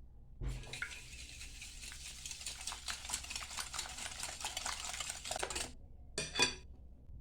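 Stirring or whisking cake batter by hand in a bowl: a fast, scratchy rasp full of small ticks that lasts about five seconds, then stops. A short ringing clink follows near the end.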